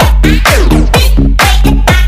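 Electronic dance music, a dub remix: a steady kick drum about twice a second over a heavy, deep bass line and chopped synth stabs, with a falling sweep about half a second in.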